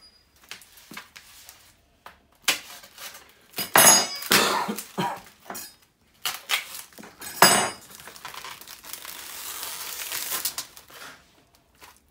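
Handling noises at a kitchen counter: several sharp clatters and crinkles of a plastic food tray and bag being moved, then a steady rustle lasting about three seconds near the end.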